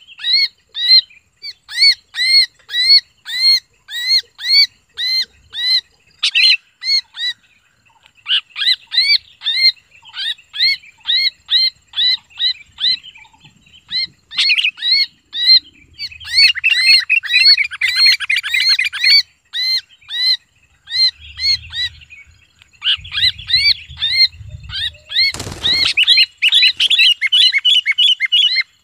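Sooty-headed bulbul held in the hand, screaming in distress: a harsh arched call repeated about twice a second, crowding into fast, dense runs in places. A brief scuffle of handling is heard near the end.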